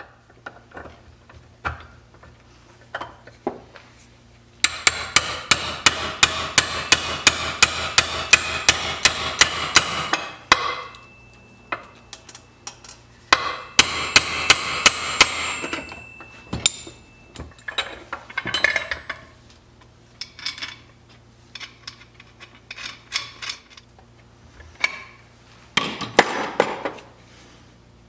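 Hand hammer striking the iron fittings of a wooden wagon neck yoke clamped in a vise. The blows come in two quick runs of about three to four a second, the first about five seconds in and the second about halfway through, with scattered single taps between and after.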